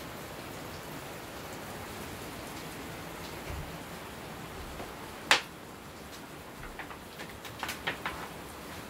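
A steady even hiss, with one sharp knock about five seconds in and several lighter taps near the end.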